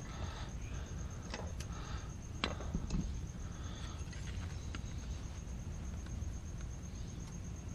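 A few short, light clicks and knocks of hand tools and small metal parts being handled, over a steady low hum and a faint high steady trill.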